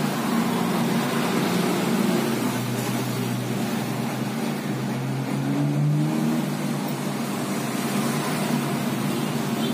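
Steady hum of a running engine, its pitch rising a little around the middle.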